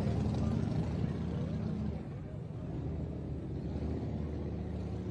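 Motorcycle engines rumbling low, a bit louder for the first two seconds and then easing off, with crowd chatter behind.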